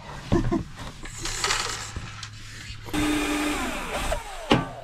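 A small electric power tool in use, with a rasping, noisy stretch, then a steady motor hum about three seconds in that falls in pitch as the motor spins down. A sharp knock follows near the end.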